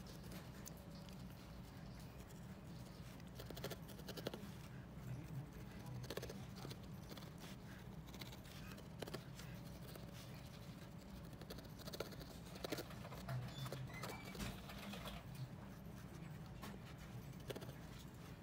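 Faint, irregular soft clicks and scratches of a felting needle stabbing into wool over a foam pad, over a low steady hum.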